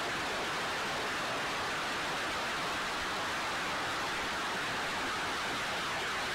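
Truck-mounted multiple rocket launcher firing a salvo: a steady, even rushing roar of rocket exhaust.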